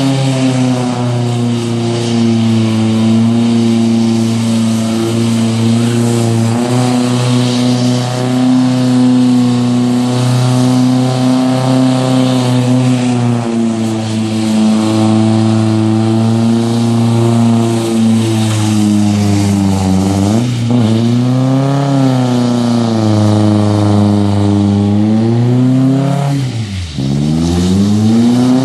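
Small pickup truck's engine held at high revs as it spins donuts on wet pavement, the rear wheels spinning under power. Twice near the end the revs drop sharply and climb straight back up.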